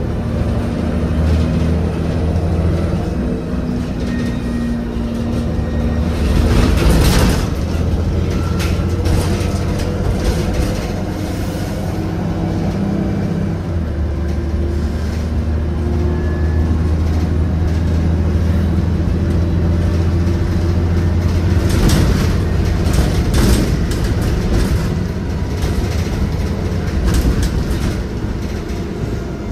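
Interior of an Irisbus Agora L articulated city bus under way: its diesel engine runs steadily over road noise, the engine note changing about halfway through. A louder spell of rattling comes about a quarter of the way in, and several short rattles near the end.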